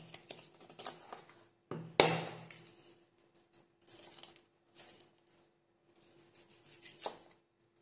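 Chef's knife cutting a raw chicken leg apart on a plastic cutting board: soft slicing, scraping and tearing of skin and meat. The blade knocks sharply on the board about two seconds in, and again more lightly near the end.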